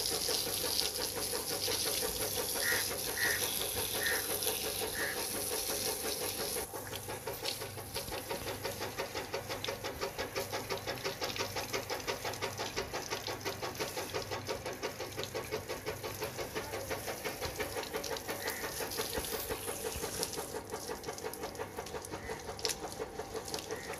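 Chickens clucking a few times, mostly a few seconds in, over a steady machine running with a fast, even pulse.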